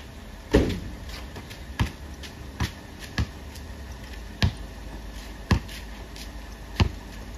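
A basketball bouncing on a concrete driveway: seven single, sharp bounces at uneven intervals, about one a second.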